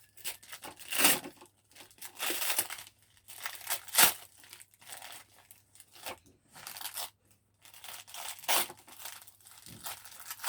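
Wrapping being torn open and crinkled by hand in irregular bursts, with sharp loud rips about a second in and again about four seconds in.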